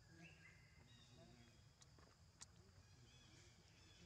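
Near silence: faint outdoor ambience with a few faint short chirps and a couple of faint clicks.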